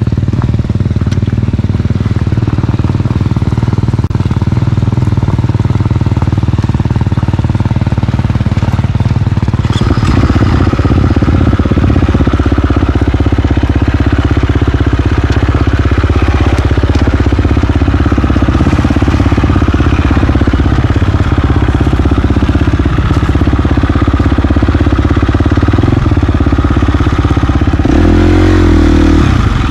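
Single-cylinder four-stroke engine of a KTM 350 XC-F enduro dirt bike, heard close up from on the bike, running steadily along the trail. It gets louder about a third of the way in as the throttle opens. Near the end there is a quick rise and fall in revs.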